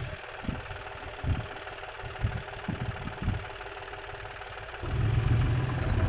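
Diesel engines of a JCB 3DX backhoe loader and a John Deere tractor running steadily near idle, with a few short low thumps in the first half. The low engine rumble gets louder about five seconds in.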